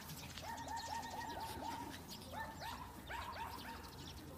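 Small dogs play-fighting, with quick runs of short, high-pitched yips, about eight a second at first, then scattered ones.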